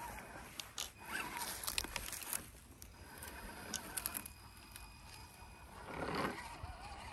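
Brushed electric motor and geared drivetrain of a 1:10 scale RC crawler whining in low gear, the pitch rising and falling with the throttle, with scattered clicks and crackles from the tyres and a louder swell about six seconds in.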